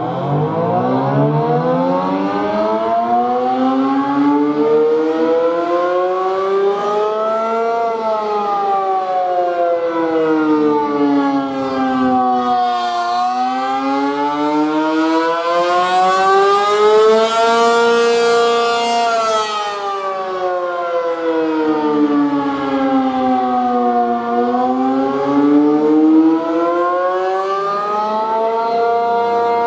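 ACA P-50 outdoor warning siren sounding the attack signal. It winds up from a low pitch over the first several seconds, then wails up and down in cycles of roughly ten seconds.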